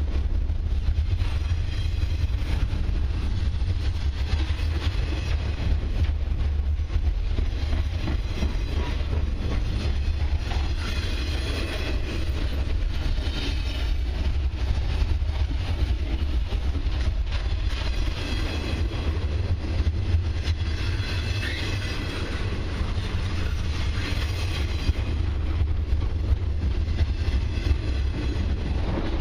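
Intermodal well cars of a long freight train rolling past close by at steady speed: a continuous low rumble of steel wheels on the rails.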